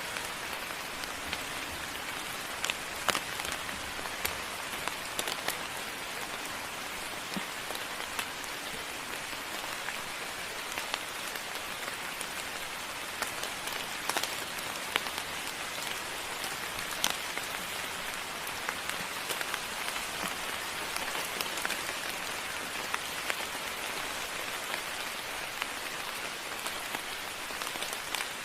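Moderate rain falling steadily, an even hiss with scattered sharper drop hits.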